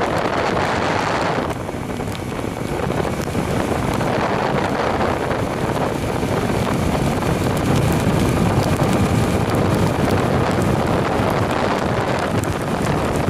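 Loud wind rushing over the microphone, steady throughout, over the low rumble of a moving vehicle.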